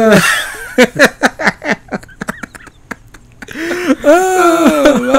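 A man laughing in a quick run of short ha's after a breathy start. Near the end comes a drawn-out voice sound.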